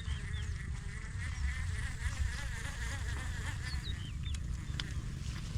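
Insects buzzing in a steady drone, with a few short bird chirps and a low rumble underneath.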